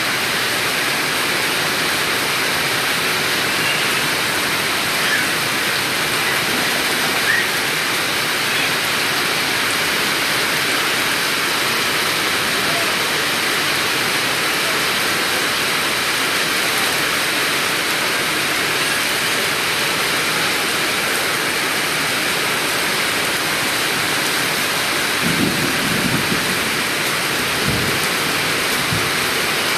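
Heavy rain falling in a steady hiss, with a few low thuds near the end.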